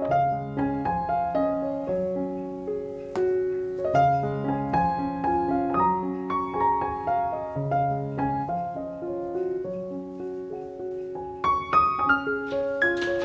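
Background piano music: a gentle melody of held notes over a slowly moving bass line, with brighter high notes struck near the end.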